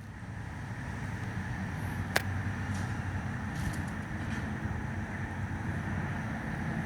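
Diesel locomotives of an approaching freight train, an EMD SD40-2 among them, rumbling low and growing louder over the first second, then holding steady. A single sharp click about two seconds in.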